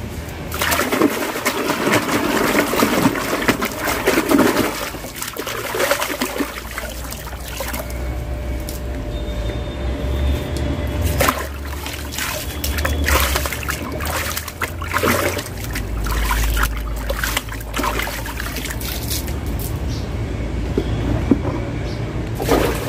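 Water splashing and sloshing in a plastic tub as a black aquarium filter sponge is rinsed and squeezed by hand, in irregular bursts. Near the end the tub is lifted and tilted, setting the water sloshing.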